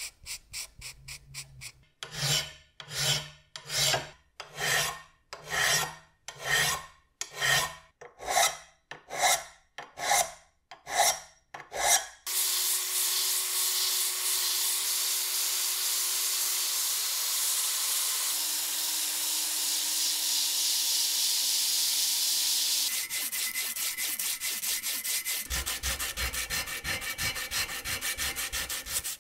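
Hand-abrading the cast-iron slicer body in slow strokes, about one a second. Then a cordless drill spins a sanding disc against the cast iron with a steady whirr and hum, its pitch dropping a little midway. Near the end come rapid back-and-forth strokes of sandpaper on the metal.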